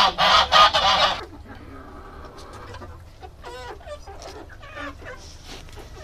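Domestic geese honking loudly in a harsh burst that stops about a second in, then quieter scattered clucks and calls from chickens in a mixed poultry flock.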